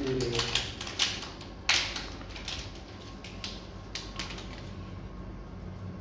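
Kittens eating, their chewing making a run of irregular sharp clicks, densest in the first couple of seconds and thinning out after.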